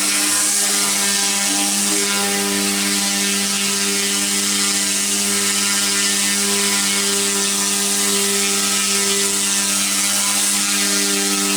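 F05 six-channel, direct-drive, single-rotor RC helicopter with two brushless motors in steady flight: its rotor and motors give a continuous buzzing hum at a constant pitch.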